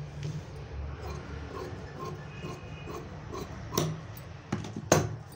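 Cotton blouse fabric being folded and handled by hand on a cutting table, soft rustling over a steady low hum, with a few sharp taps on the table near the end, the loudest just before it ends.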